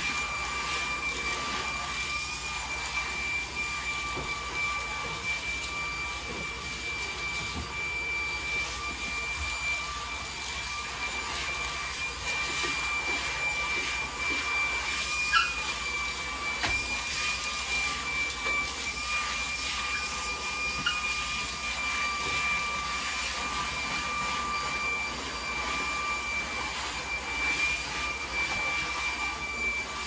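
Vacuum cleaner running steadily, its motor giving a constant high whine over a rushing hiss.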